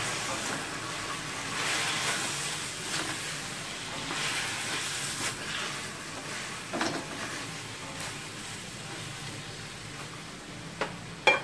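Beef chunks and chopped chillies frying in a steel wok, sizzling steadily while a plastic spatula stirs and scrapes them. Near the end come a few sharp knocks.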